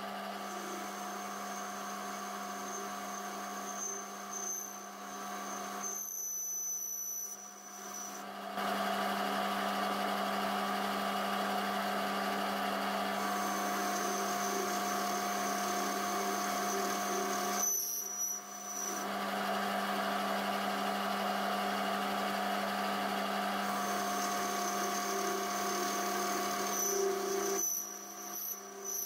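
Metal lathe running, a carbide boring bar cutting inside the bore of a hard alloy roller blank: a steady machine hum under the cutting noise. The cutting noise drops away briefly three times, about six, eighteen and twenty-eight seconds in.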